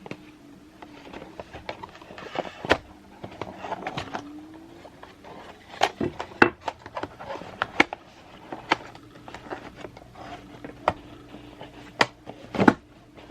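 Cardboard box and packaging being handled: scattered sharp taps and clicks with light rustling, the loudest clicks around the middle and just before the end.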